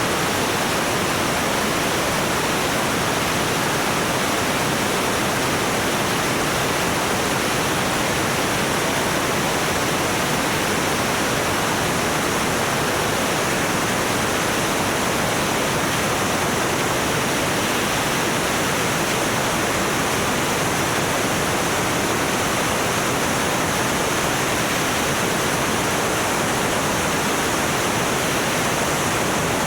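Steady, even rushing noise of a small aircraft's engine and airflow, unchanging throughout.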